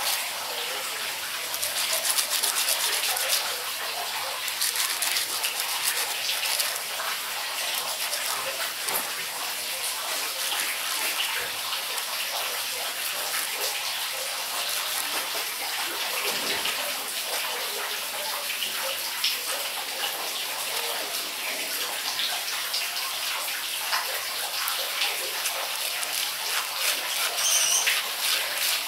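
Sandpaper scraping the tip of a hard golden shower tree seed by hand, a steady scratchy hiss: the seed coat is being scarified to break its dormancy.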